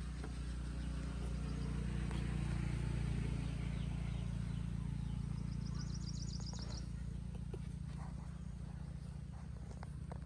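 Outdoor ambience: a steady low hum, with a rapid high-pitched chirping trill a little past halfway and a few faint small clicks.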